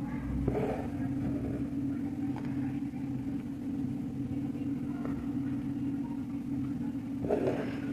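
A steady low machine hum, with two brief rustles of embroidery thread being pulled through cloth in a hoop, one about half a second in and one near the end.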